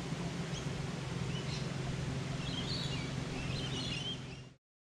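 Steady outdoor river ambience with a low hum and scattered faint bird chirps, cutting off abruptly to silence about four and a half seconds in.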